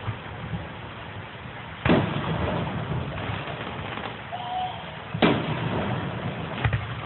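Fireworks going off: two loud bangs about three seconds apart, each followed by a noisy rumble, with a smaller pop near the end.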